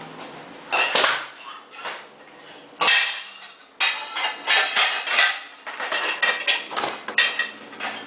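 Hard objects clinking and clattering: a run of irregular knocks, each with a short ringing after it, the loudest about three seconds in.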